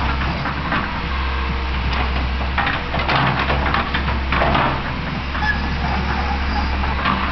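Fiat-Hitachi EX135 hydraulic excavator working: its diesel engine running steadily under the clanks and knocks of the boom and bucket, with a rougher rush of soil being dragged by the bucket from about two and a half seconds in.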